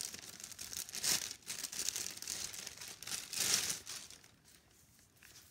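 Clear plastic bag crinkling and rustling as a pair of flat sandals is handled and taken out of it, loudest about a second in and again around three and a half seconds, then dying away.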